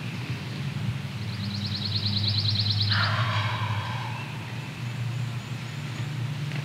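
A wild turkey gobbler gobbles once, a sudden rattling call about three seconds in that trails off over a second. Just before it comes a rapid high trill, and a steady low hum runs underneath.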